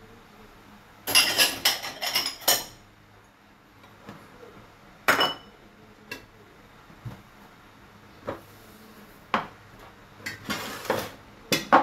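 Kitchen clatter of ceramic plates and bowls clinking and knocking on a countertop as they are handled and moved. It comes as a burst of sharp clinks about a second in, single knocks around five and nine seconds, and another burst near the end.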